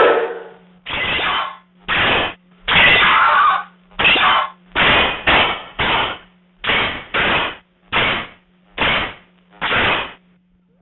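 A run of about a dozen short, noisy sound-effect bursts, roughly one a second, over a steady low hum.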